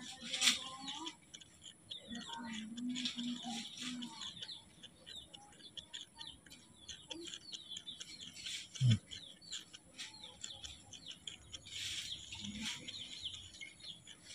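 Small birds chirping, many short quick chirps one after another, with a single dull thump about nine seconds in.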